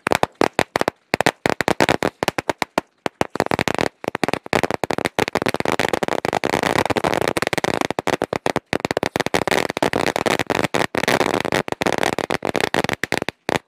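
A thousand-cracker string (ladi) going off in rapid, irregular cracks. The cracks are scattered for the first few seconds, then run together into a dense, nearly continuous rattle from about four seconds in, and stop near the end.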